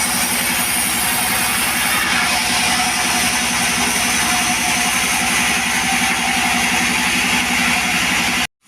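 Chainsaw engine running at a steady speed with a fast, even firing pulse. The sound breaks off abruptly for a moment near the end.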